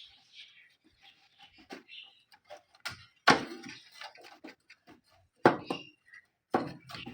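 A run of light clicks and knocks, as of tools and small parts being handled, with sharper knocks about three, five and a half, and six and a half seconds in. The loudest is the one about three seconds in.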